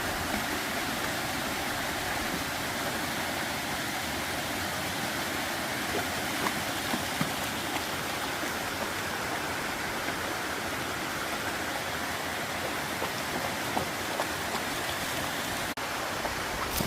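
Steady rush of flowing water, as from a stream or small cascade.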